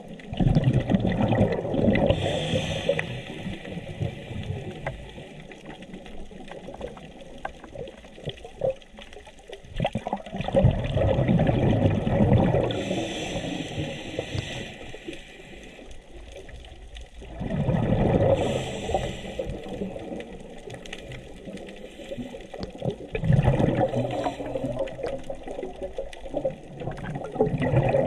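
Scuba diver breathing through a regulator underwater: exhaled bubbles gurgle out in bursts about every five to six seconds, with quieter stretches between.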